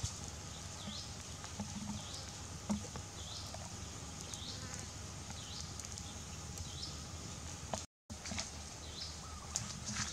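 Outdoor ambience with a short, high chirp repeating about once a second over a steady low hiss, with a few faint clicks; the sound drops out for a moment near the end.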